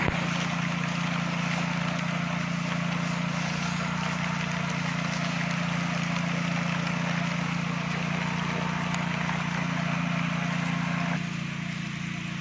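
Engine-driven power sprayer running steadily while its spray jet hisses as it shoots up into areca palm crowns. Both ease off slightly near the end.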